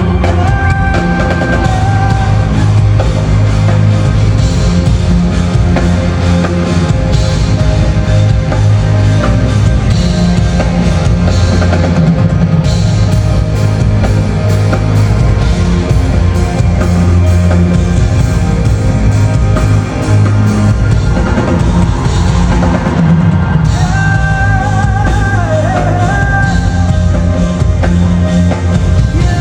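Live band music played loud through a concert sound system: drum kit and heavy bass under a melodic line that is held and bent in pitch near the end.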